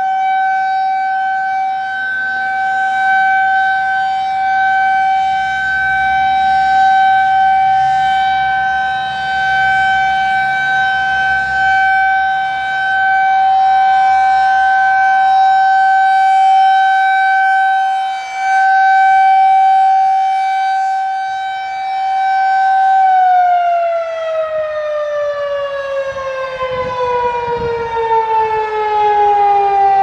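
Federal Signal 2001-SRN rotating electromechanical warning siren sounding a steady single-tone alert signal for a test, swelling and fading as the horn turns. About three quarters of the way through it is switched off and winds down, its tone falling steadily in pitch.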